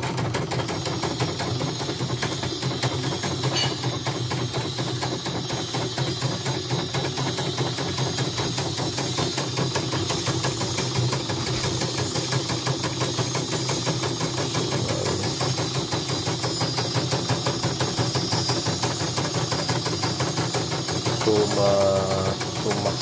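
CNY portable embroidery machine stitching a lettering design: the needle runs in a rapid, steady chatter over the hum of its motor, with a short wavering tone near the end. It is running smoothly with no faults, as a test after repair of a machine that had died completely.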